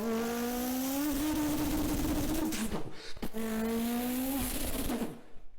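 A person imitating a car engine with their voice: a pitched drone rising as if revving up through the gears, breaking into a rough, hissing stretch. After a short break a second rising run follows, and it cuts off just before the end.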